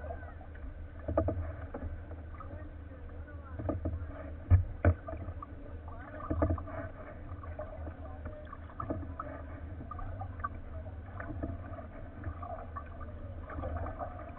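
Kayak paddle strokes dipping and splashing in the water about every two and a half seconds over a steady low rumble of water against the hull. Two sharper knocks come a little before halfway.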